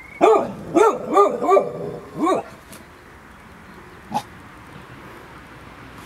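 A brown Labrador-type dog barking at a garden fence to chase off a cat: five quick barks in the first two and a half seconds, then a single shorter bark about four seconds in.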